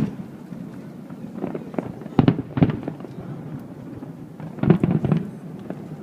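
Aerial fireworks shells bursting in a string of irregular booms, each a sharp crack with a rumble trailing after it, the loudest a little past two seconds in and a cluster near the end.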